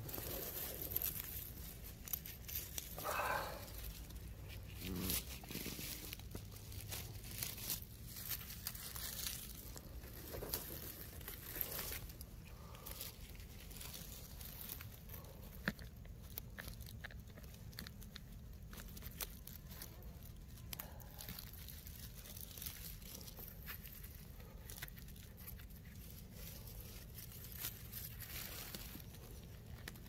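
Crunching and rustling of dry forest-floor litter underfoot and in the hands, a steady scatter of small crackles, with a couple of brief louder sounds about three and five seconds in.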